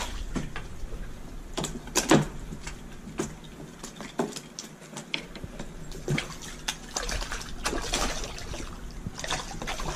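Water splashing and sloshing at the side of a kayak as a hooked sheepshead is brought up alongside, with scattered sharp knocks and clicks at irregular intervals.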